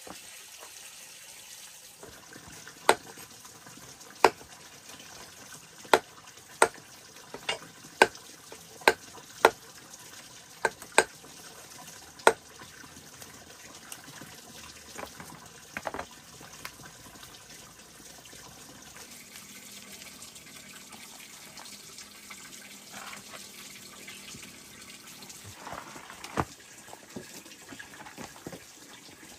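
Knife chopping pork fat on a wooden chopping block: a string of sharp knocks, about one a second for the first dozen seconds, then only a few scattered ones, over a steady background hiss.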